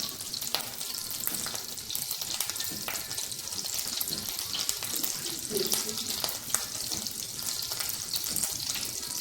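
Butter melting and sizzling in a hot frying pan, a steady crackle of small pops.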